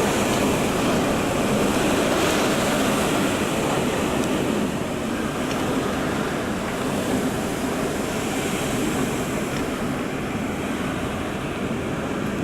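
Typhoon storm wind blowing hard in gusts of over 45 metres per second, a dense, steady rush that buffets the microphone, a little stronger in the first few seconds. A few faint ticks sound through it.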